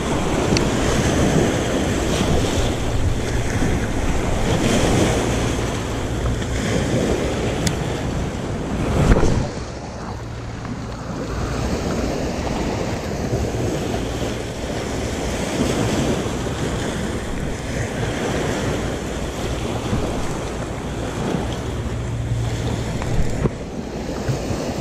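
Small sea waves breaking and washing over a rocky, pebbly shore, with wind buffeting the microphone. One short moment about nine seconds in is louder.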